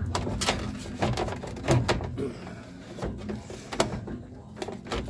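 Clicks, knocks and scraping of the 1968 Camaro's gauge cluster housing against the dash and wiring as it is pushed and worked by hand into the opening, with a few sharper knocks.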